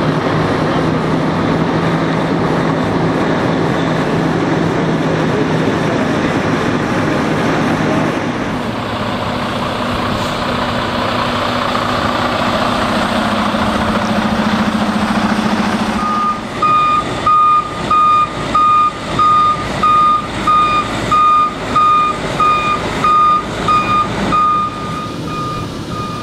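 Single-axle dump truck's diesel engine running, its note stepping up in pitch about a third of the way through. In the last third the truck's backup alarm beeps steadily, about two beeps a second, as it reverses.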